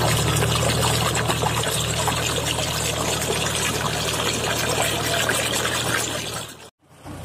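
Water gushing out of a large irrigation pipe into a flooded paddy field, over a steady low engine hum. The sound breaks off abruptly near the end.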